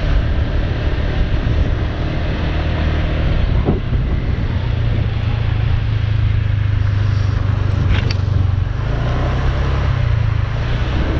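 Motorcycle engine running steadily at low speed as the bike rides along, its low hum under a hiss of wind and road noise. There are two short clicks, about four seconds in and about eight seconds in.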